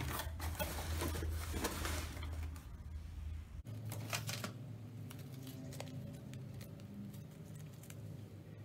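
Cardboard box being opened by hand: flaps scraped and pulled back, with dense rustling, then sparser crinkling of plastic packaging as items are lifted out. A steady low hum runs underneath.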